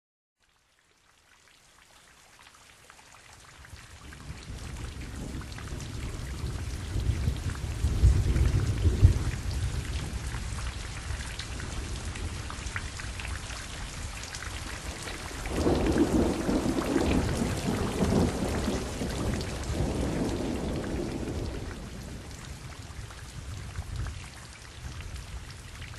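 Steady rain with rolling thunder, fading in at the start. One rumble of thunder comes about eight seconds in, and a longer one from about sixteen to twenty-two seconds.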